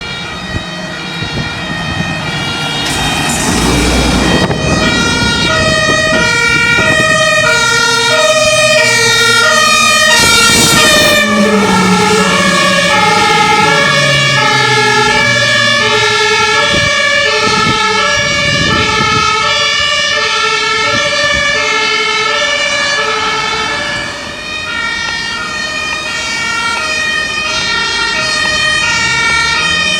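Two-tone sirens of several German fire and rescue vehicles, alternating high and low notes out of step with one another, with vehicle engines passing under them. Two brief loud noisy blasts cut in about three and ten seconds in.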